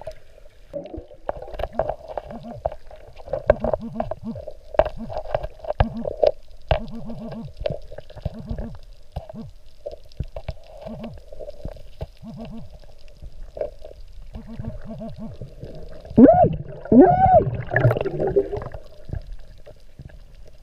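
Underwater gurgling of a diver's breathing bubbles, coming in short repeated runs over a steady hum. About sixteen seconds in, louder wavering tones rise and fall for a couple of seconds.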